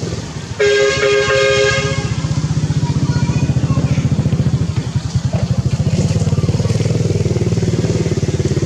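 A small engine running steadily close by, like a motorcycle's. About half a second in, a two-tone horn sounds once for about a second and a half, the loudest thing heard.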